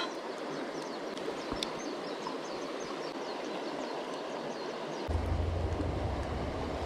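Mountain stream rushing steadily, with a run of quick, short high chirps in the middle and a low rumble on the microphone from about five seconds in.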